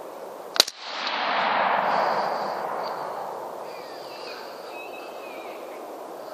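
A single rifle shot, sharp and loud, about half a second in. It is followed by a long swell of noise that builds and fades over about three seconds as the report echoes back.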